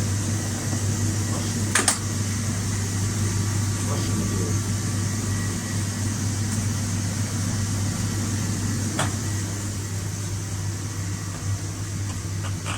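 A steady mechanical hum, like a fan or motor running, with two short sharp clicks about two seconds and nine seconds in.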